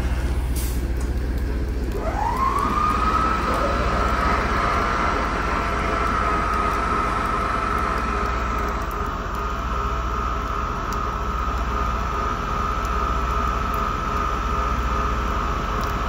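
Heritage diesel train running, with a steady low rumble and a high whine that rises in pitch about two seconds in, holds on one note, and drops away at the end.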